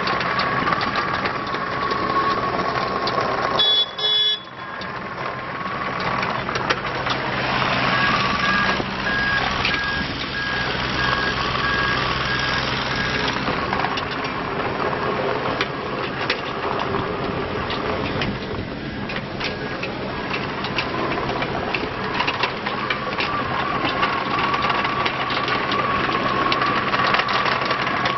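2012 Wacker Neuson 28Z3 mini excavator's diesel engine running under load as the machine travels on its rubber tracks and swings, with a high wavering whine over the engine. About eight seconds in, a travel alarm beeps in a steady series for around five seconds. The sound drops out briefly about four seconds in.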